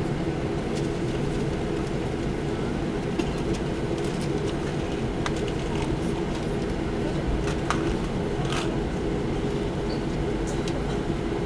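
Cabin noise of a Boeing 737-800 taxiing: a steady low rumble and hum from its CFM56 engines at taxi power and the rolling aircraft, with scattered light clicks and rattles.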